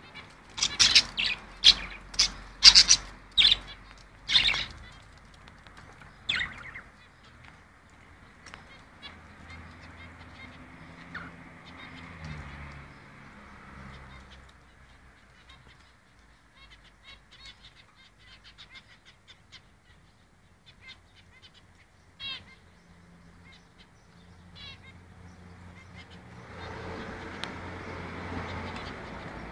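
Pet budgerigars calling: a run of about seven loud, sharp squawks in the first few seconds, then quieter chirping and chattering, with a few more calls later. A rustling noise comes in near the end.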